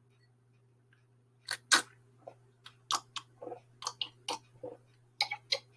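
Mouth and throat noises: about a dozen short, wet clicks and smacks at irregular spacing, starting after a second and a half of quiet.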